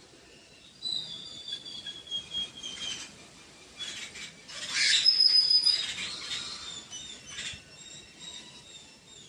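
Birds chirping and whistling in high thin calls, one long call slowly falling in pitch early on, with a louder short burst of noise about five seconds in.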